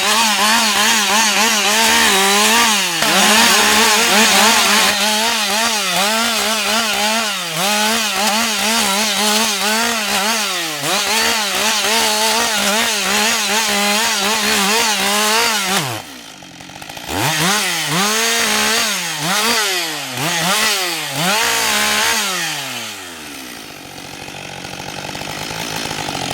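Husqvarna 560 XP two-stroke chainsaw cutting wood at high revs, its engine pitch wavering under load. About two-thirds of the way in it drops off, is revved up and down in several quick blips, slows to a lower, steadier speed, and revs up sharply again at the end.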